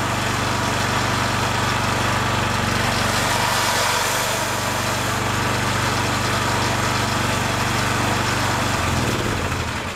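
McCulloch ride-on lawn mower's engine running steadily, then slowing and shutting off near the end.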